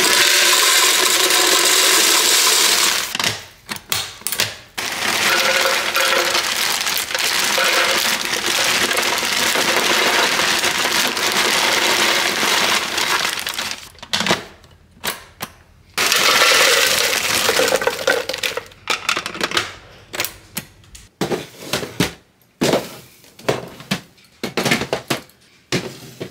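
Dry cereal poured into a storage container: a dense rattling hiss in three long pours, the middle one the longest. Near the end come scattered short clicks and knocks.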